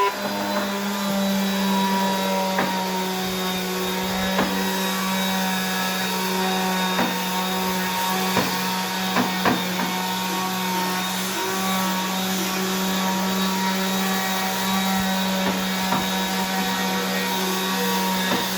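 Power tool motor running steadily during woodworking, with scattered sharp knocks of wood throughout.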